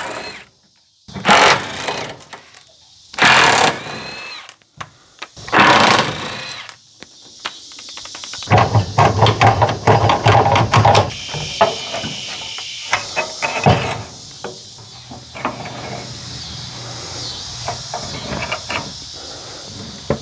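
A power tool running in short bursts of about a second, then a longer rattling, hammering run midway through, with scattered metallic clicks and clinks between.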